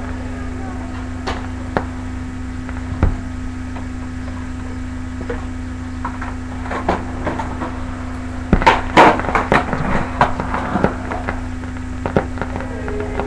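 Numark turntable between plays of a 45 rpm record: a steady hum with scattered clicks, then a cluster of louder knocks and crackle about two-thirds of the way through as the tonearm is handled and the stylus is set down on the record.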